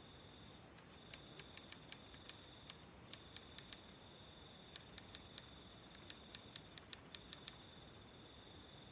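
Irregular quick runs of sharp, light clicks, about two dozen over some six seconds, in a typing-like rhythm, over a faint steady high-pitched whine.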